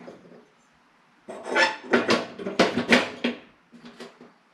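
Kitchenware clattering and clanking as it is handled and set down: a quick run of hard knocks lasting about two seconds, starting just over a second in, with a couple of softer knocks near the end.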